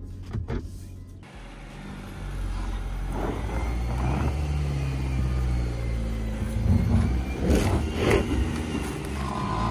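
BYD Shark 6 plug-in hybrid ute working hard on an off-road hill climb: a steady low drivetrain drone under load, with louder crunching surges from the tyres about three to four seconds in and again near eight seconds, and a brief steady tone near the end.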